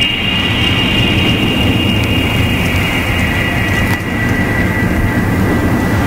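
Ambient drone soundtrack for the dance: a loud, steady low rumble with a high held tone that slowly sinks in pitch.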